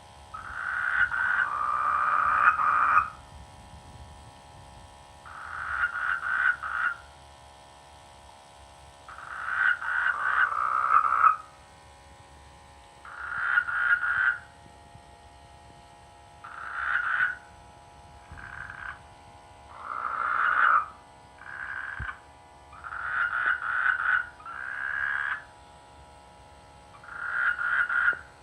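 Frogs croaking in a rainy-season mating chorus. The calls come in repeated bouts of one to three seconds, about every three to four seconds, over a faint steady background drone.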